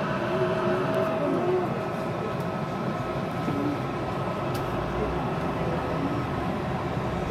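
Yurikamome rubber-tyred automated guideway train running along its elevated concrete guideway, heard from inside the front car. It makes a steady rumbling running noise with a faint steady whine over it.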